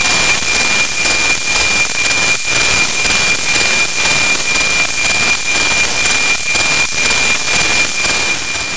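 NOAA weather satellite APT signal as demodulated audio from a software-defined radio: loud static hiss with a steady high tone running through it, the satellite's 2400 Hz image subcarrier, and faint regular ticks.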